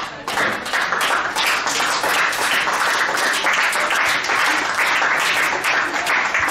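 Spectators clapping and applauding close by, a loud, steady run of many separate claps that starts just after the beginning.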